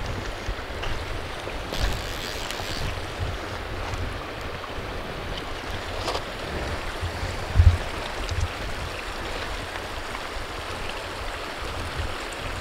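A shallow river rushing steadily over gravel, with low bumps of handling on the microphone, the strongest a little past halfway.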